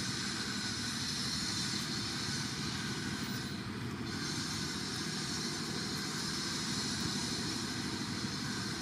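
Steady outdoor background noise with no distinct events and no monkey calls.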